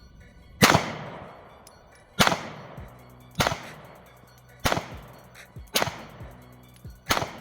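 Glock 43X 9mm pistol firing six single shots at an unhurried pace, about one every second or so. Each shot is a sharp crack with a short ringing echo after it.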